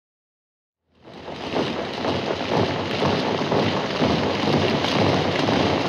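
Silence, then about a second in a steady rushing noise fades in and holds, with a fine crackle running through it.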